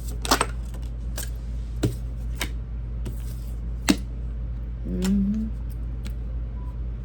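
Tarot cards being handled on a table: scattered sharp clicks and taps, about half a dozen, with a short hummed voice about five seconds in, over a steady low hum.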